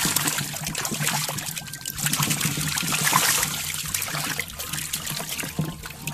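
Water splashing and trickling in a plastic bucket as pangasius catfish are scooped up and thrash in a landing net, the splashing swelling and easing by turns over a low steady hum.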